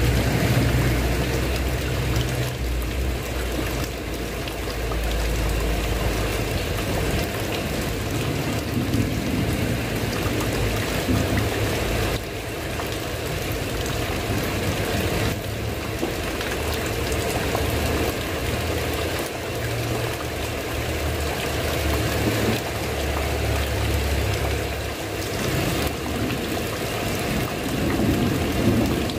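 Heavy rain falling on a tile roof, a steady hiss, with a low rumble that swells and fades underneath at times.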